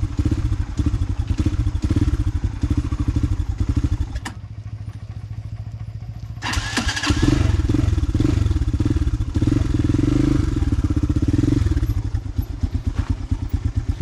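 Motorcycle engine running with a fast, even low beat. About four seconds in it drops back quieter for two seconds, then picks up again.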